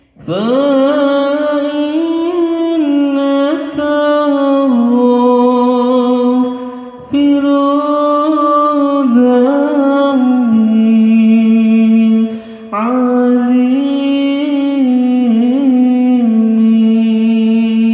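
A man's voice singing three long, drawn-out ornamented phrases into a microphone, played through an amplifier and loudspeakers during a sound check.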